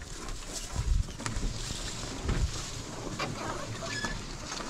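Footsteps on a steep dirt portage trail, with uneven thumps and clicking knocks from a canoe carried overhead.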